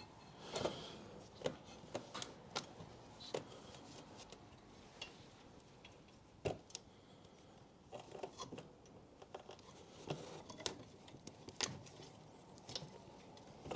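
Faint, scattered small clicks and brief rustles of hands working wiring multi-plugs loose inside a car's front wheel arch. The sharpest click comes about six and a half seconds in, with a little run of clicks a second or so later.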